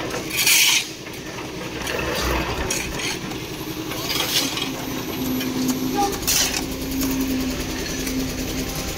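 A steady engine drone under short scraping sounds from iron pans and shovels working wet concrete. Scrapes come near the start and twice more later, and a steady low hum joins the drone about halfway through.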